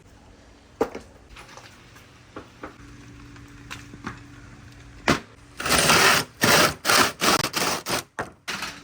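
Marbles rolling and clattering on a handmade wooden marble-run track: a sharp click about a second in, a few faint ticks, then loud rattling runs in quick succession from about five seconds in.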